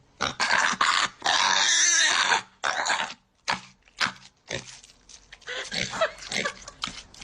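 A dog growling in a run of short, irregular rough sounds, with one longer growl a little over a second in.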